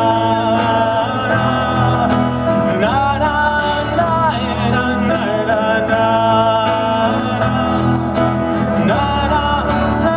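Live band playing an Italian pop song: an instrumental passage between sung lines, a gliding melodic lead over a steady bass.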